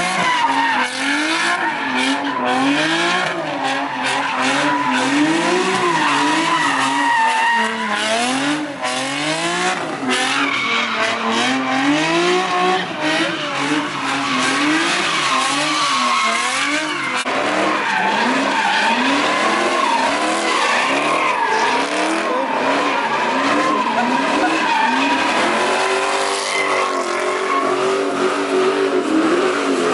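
A car's engine revving hard, its pitch swinging up and down about once a second, while the tyres squeal and screech in a continuous spin: a car doing donuts at a street sideshow.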